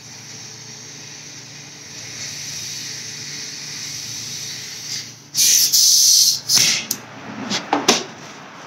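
Compressed shop air hissing steadily through an Astro Pneumatic 7856 air-powered cooling system pressure tester as it pressurizes the empty cooling system toward 15 psi. About five seconds in, a much louder rush of air lasts about a second, followed by a shorter one, then a few clicks from the fittings being handled.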